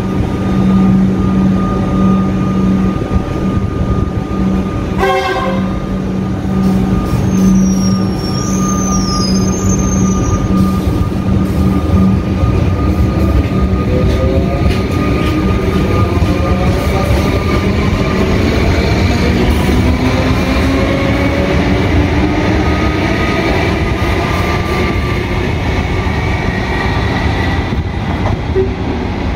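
Electric suburban train at a station platform: a steady hum with a short horn toot about five seconds in, then a whine of several pitches rising slowly through the second half as trains move on the line.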